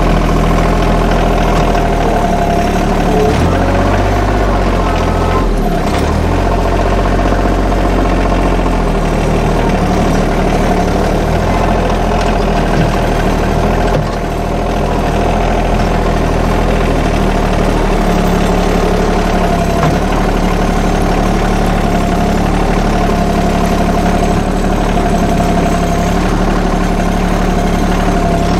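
Norwood LM portable sawmill's gasoline engine running steadily under power, with a steady tone above the engine note and one brief dip in loudness about halfway through.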